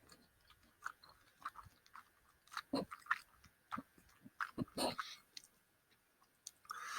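Close-miked chewing of a tough gummy candy, the gummy lettuce from a gummy burger: soft, wet mouth clicks at irregular intervals, picked up through a gaming-headset microphone. A breath is heard near the end.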